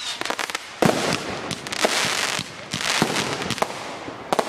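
Consumer aerial fireworks going off. A string of sharp bangs, the loudest about a second in and a quick pair near the end, with a crackling hiss between them.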